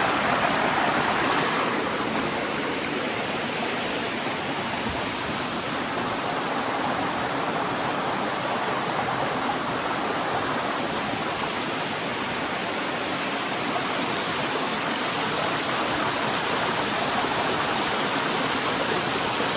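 Steady rush of running water from a rainforest creek and waterfall, a little louder for the first second or so.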